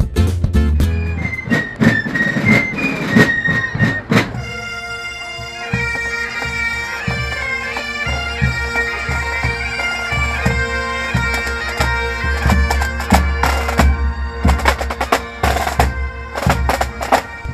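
Marching pipe band: bagpipes playing a tune over their steady drones, with snare and bass drums. It starts about four seconds in, after a high shrill fife melody with drums. Near the end the drumming takes over.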